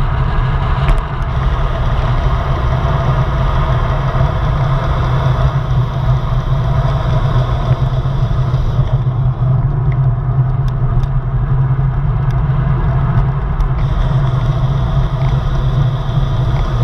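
Steady wind noise buffeting the microphone of a handlebar-mounted camera on a road bike descending at speed, with tyre and road rumble and a few small clicks from the bike.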